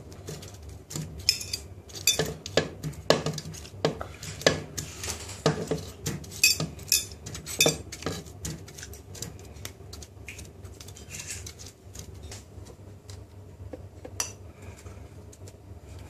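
Irregular sharp clinks and knocks of a plate and food against a plastic blender jug as watermelon chunks are tipped in off the plate and ice cubes dropped in. They are busiest in the first half and sparser later.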